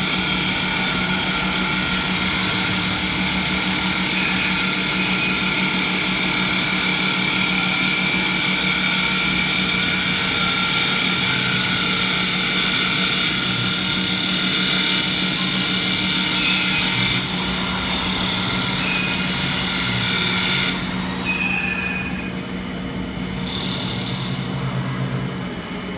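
Two-spindle automatic wood turning lathe running: a steady motor hum with the hiss of cutters shaving the turning wood. The hiss drops off sharply about two-thirds of the way through and fades further near the end.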